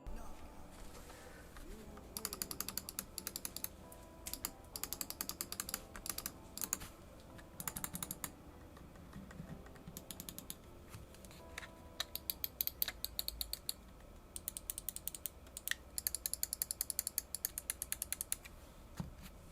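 Glorious Model O gaming mouse clicking in quick runs of many rapid clicks, with short pauses between the runs.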